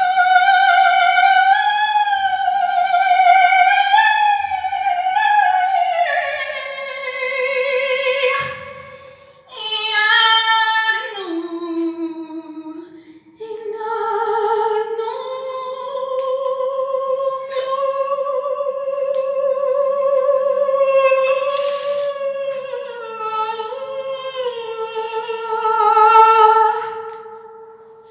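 A woman's voice singing long, high sustained notes in an operatic style with wide vibrato. The line slowly steps down in pitch, breaks off briefly twice, then settles on long held notes near the end.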